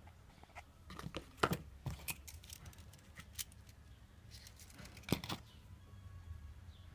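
Handling noise from a paper packaging card and a small plastic spool of Clapton wire: light rustles and clicks, with two sharper knocks about a second and a half in and about five seconds in.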